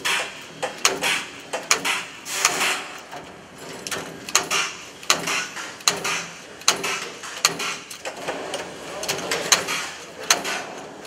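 Handheld RIVCLINCH 0404 IP V3 clinching tool pressing joints into galvanized sheet-metal duct flanges in quick succession: a run of sharp metallic clacks, about one every half second to second, with noisy rattling of the sheet metal between them.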